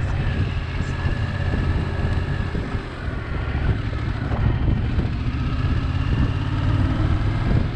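Motorcycle being ridden on the road: the engine runs with steady wind rush, a constant low rumble.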